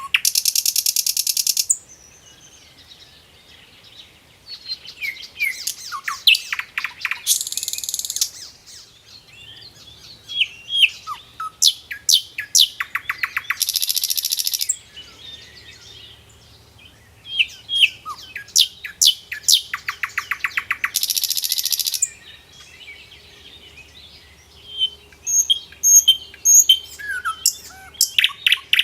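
A bird chirping and trilling in repeated bouts: quick chirps and rapid clicking notes, each bout ending in a harsh buzzing trill about a second long, coming round about every six to seven seconds.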